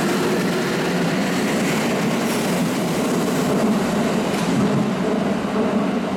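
Kintetsu 9820 series electric commuter train pulling out of an underground station. Its wheels and running gear give a steady rumble as the last cars pass and the train draws away into the tunnel.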